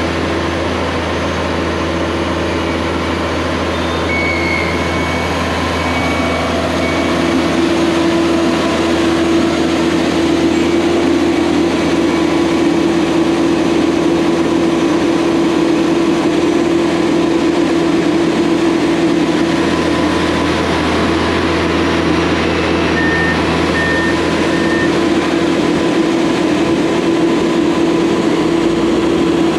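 Buckeye wheel trencher's engine running steadily under load, with a steady hum that grows louder about seven seconds in.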